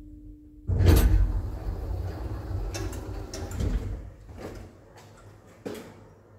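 A 1990 Doppelmayr passenger elevator's automatic sliding doors open with a loud rumbling slide that fades over about three seconds. A steady hum cuts off just as the doors start to move, about a second in. A few knocks and footsteps follow.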